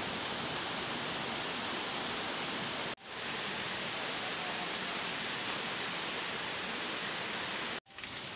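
Steady hiss of rain falling on the foliage and the stream. It drops out for a moment about three seconds in and again near the end.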